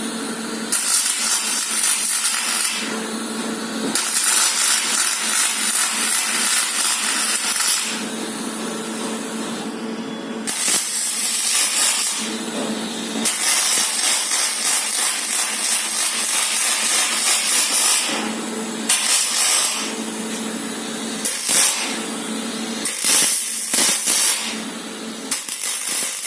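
Welding on aluminium formwork: the arc hisses and crackles in runs of a few seconds with short breaks between them, over a steady hum.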